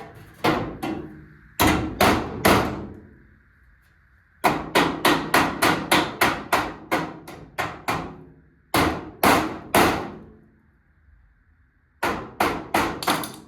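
Hammer blows on sheet-metal car body panel, each strike sharp and ringing, in bursts: a few strikes, another three, a fast run of about a dozen, three more, then five near the end.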